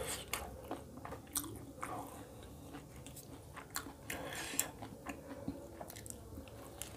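Close-up chewing and mouth sounds of a person eating roti dipped in egg curry, with irregular short wet clicks and smacks.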